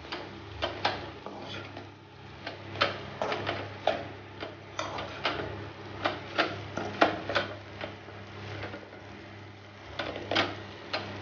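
Slotted metal spatula knocking and scraping against a metal kadai as chopped chapathi and egg are stirred and tossed: irregular clicks and clinks in quick clusters, over a steady low hum.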